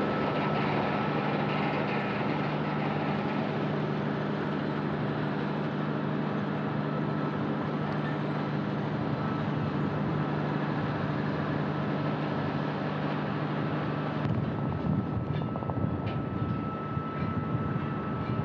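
Diesel locomotive pushing a Soyuz rocket's rail transporter, running steadily with a low engine hum and a constant high whine. About fourteen seconds in the hum gives way to a rougher rumble with a few clicks.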